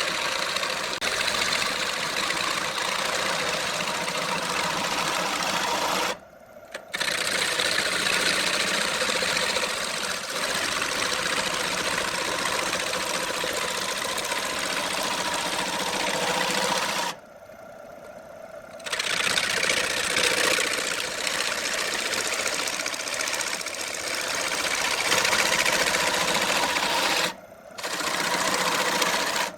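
Wood lathe running, with a turning tool cutting into the spinning wood: a steady whirring, scraping hiss. It drops out briefly about six seconds in, for about two seconds near the middle, and again briefly near the end.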